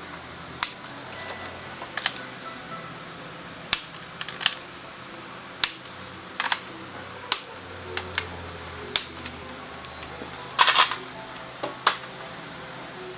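About ten sharp clicks and knocks at irregular intervals, with a quick cluster of them near the end, over a steady low hum.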